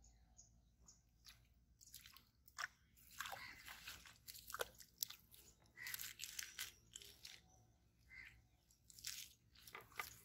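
Faint crackling and rustling noises, with a small splash about six seconds in as a small hooked catfish is pulled out of the pond water on a cane pole line.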